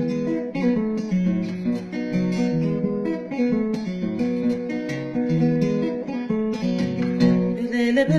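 Acoustic guitar with a capo, played as a picked chord accompaniment with notes sounding in steady succession. Right at the end a woman's voice starts to sing.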